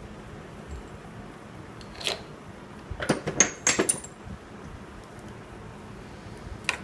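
Sharp metallic clinks and knocks of steel tooling being handled on a metal lathe, as a magnetic base and dial-indicator holder are set on the carriage: one about two seconds in, a quick run of four or five around the middle, and one more near the end.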